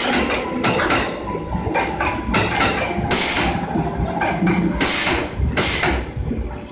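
JR 211 series electric train running past, its wheels knocking over rail joints and points in a string of irregularly spaced clunks.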